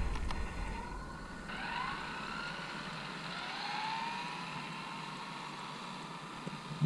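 Faint, distant whine of an Arrma Limitless V2 RC car's brushless motor (TP4070 2200kv), rising slowly in pitch from about a second and a half in.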